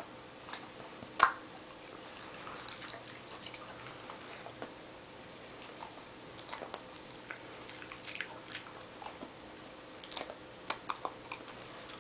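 A pet eating: scattered small clicks and chewing sounds, with one sharper, louder click about a second in and a quick run of clicks near the end.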